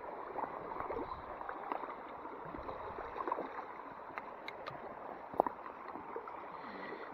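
Creek water running over rocks, with scattered short splashes and ticks from a hooked brown trout splashing in the shallows as it is landed.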